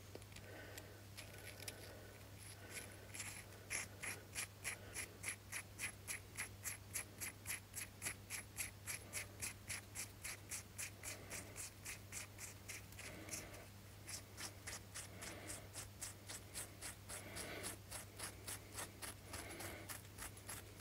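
M8 steel nut being spun by hand along a bolt's freshly cleaned thread, giving a faint, rapid, regular ticking of about three to four clicks a second. It runs freely, with no resistance once the threads have been cleaned with a tap and die. A steady low hum sits underneath.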